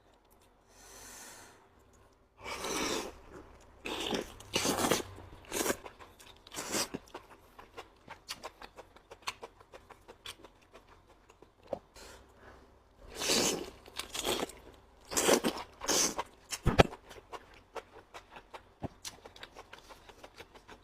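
A person eating close to the microphone: bites, crunching and wet chewing, with louder crunchy mouthfuls several times among steady small smacking clicks.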